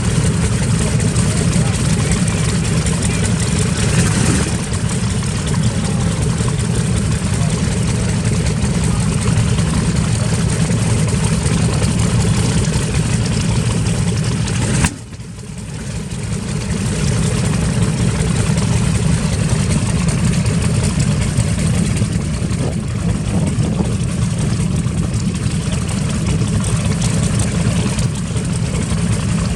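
Wright R-2600 Twin Cyclone radial aircraft engine running steadily and loudly on a WWII warbird. About halfway through the sound drops out sharply, then builds back up over a couple of seconds.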